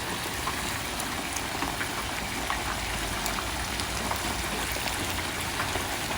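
Turkey deep frying in a pot of hot peanut oil, sizzling steadily with many small crackles and pops.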